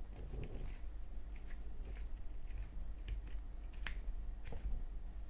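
Small scattered clicks and taps of a Zippo lighter's metal parts being handled as the flint and flint spring are fitted back in, with one sharper click about four seconds in.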